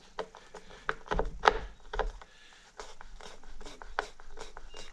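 Hand screwdriver driving in the screws that hold the main circuit board of a Technics SL-1200 MK2 turntable: a run of irregular clicks and small scrapes, with a few dull knocks about a second in.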